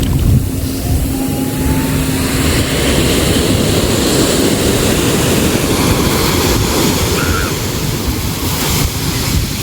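Sea waves washing steadily with wind rumbling on the microphone, mostly deep rushing noise. A faint steady hum underneath stops about three seconds in.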